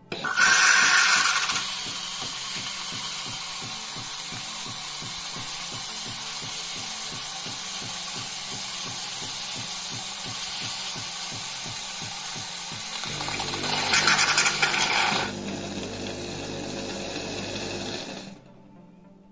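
Philips 2200 LatteGo espresso machine frothing milk through its LatteGo milk system: a loud, steady hiss with a rapid pulsing from the pump underneath. Louder spurts come near the start and about 14 seconds in, and the machine stops about 18 seconds in.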